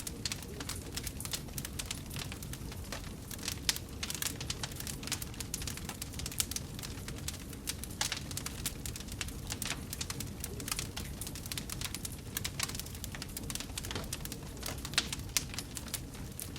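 Wood fire crackling in a fireplace: a dense run of small, irregular pops and snaps over a steady low rush of burning, with a few sharper pops standing out now and then.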